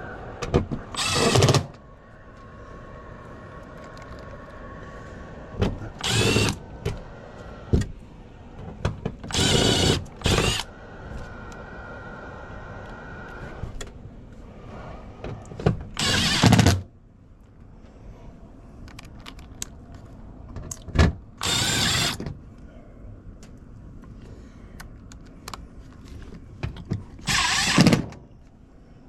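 Power drill run in about six short bursts of a second or less each, with a lower steady hum between the bursts.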